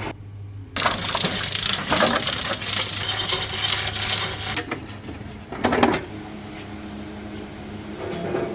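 Metallic clinking and rattling, like small metal pieces jingling against each other, starting abruptly about a second in and stopping suddenly, with a shorter clatter a little later.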